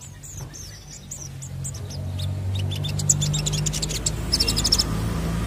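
Olive-backed sunbird singing: scattered quick high chirps at first, then from about three seconds in fast runs of sharp high notes. A low steady hum underneath grows louder.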